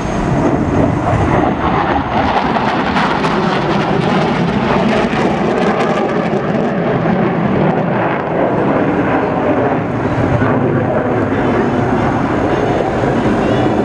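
F-111's twin TF30 afterburning turbofans running loud and steady as the jet flies a dump-and-burn, its afterburners lighting dumped fuel into a long flame. A crackle runs through the noise from about two to seven seconds in.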